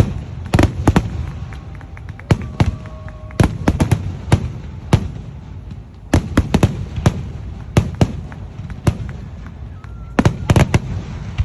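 Fireworks going off: an irregular run of sharp bangs and cracks, some in quick clusters of two or three, over a steady low rumble.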